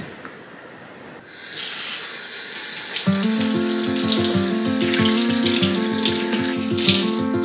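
Kitchen faucet turned on about a second in, water running from the tap into a stainless-steel sink as a cloth is rinsed under the stream. Background music with a steady beat comes in about three seconds in.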